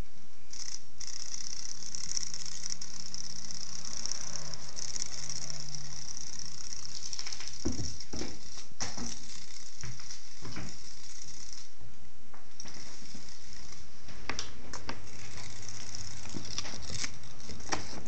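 A kitten and a small dog scrambling after a toy on a string on a wooden floor: scattered paw patter, thumps and rattles, with more of the knocks in the second half. A steady high hiss runs under it and stops about two-thirds of the way through.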